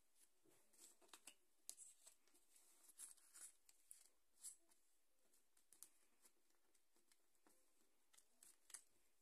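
Faint crinkling and tearing of a Pokémon booster pack's foil wrapper being opened, then soft clicks and rustles of the trading cards being handled, in scattered short crackles.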